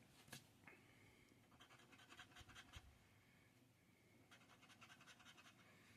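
Faint, rapid scratching of a lottery scratch-off ticket's coating, in two spells: from about a second and a half in, and again from about four seconds in.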